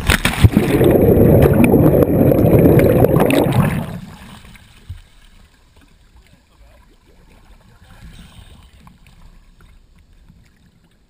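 A camera in a waterproof housing dropped from above hits the spring water with a splash, followed by loud churning water noise for about four seconds. The churning then falls away to faint, muffled water sounds as the camera floats at the surface.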